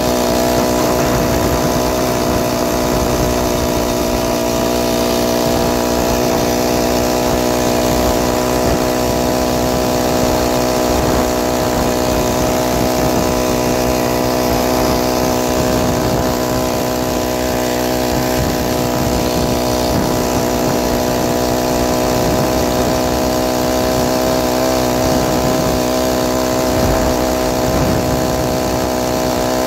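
Small 49cc four-stroke motorized-bicycle engine running steadily, its pitch holding even throughout.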